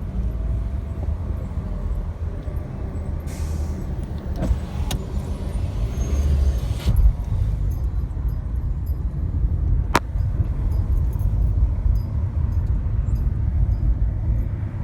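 Steady low rumble of a car on the road, with two short swells of hiss about three and six seconds in and a sharp click about ten seconds in.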